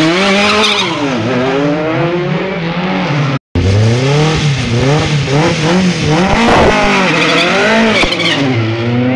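Single-seater formula race car engines revving hard as the cars launch from a standing start, the revs rising and dropping again and again through quick gear changes. The sound cuts out for an instant about a third of the way in.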